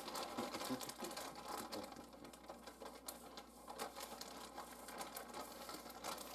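Plastic bag of shredded cheese rustling and crinkling as a hand rummages in it: a dense, irregular run of small crackles.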